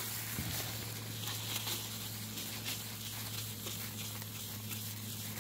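Paper towel rubbing over a plastic truck headlight lens coated in WD-40, a continuous scratchy wiping with many small strokes, over a steady low hum.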